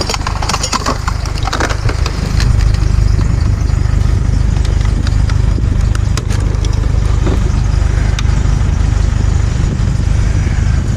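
An engine idling steadily, a continuous low rumble, with scattered light clicks and knocks over it.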